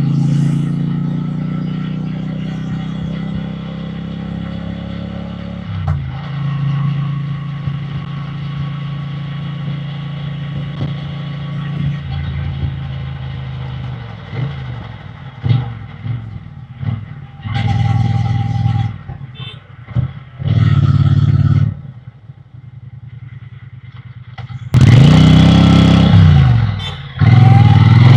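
Triumph Bonneville T120 parallel-twin engine and exhaust heard from the rider's seat: the revs fall away as the bike slows, it runs low with a few short throttle blips, then near the end it accelerates hard, with a brief dip for a gear change and wind noise rising on the microphone.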